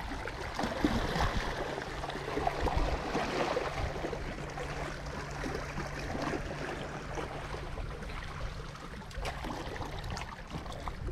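Small sea waves lapping and splashing against rocks at the water's edge, an uneven wash with scattered small knocks.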